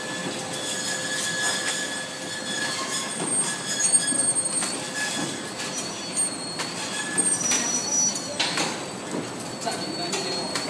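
Plastic fork packing machine running, sealing forks into film packs: a steady mechanical clatter with irregular clicks and high-pitched tones that come and go.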